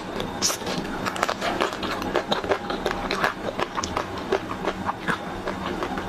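Close-miked biting and chewing of a chocolate-coated ice cream bar, its crisp shell cracking in many quick, irregular crunches.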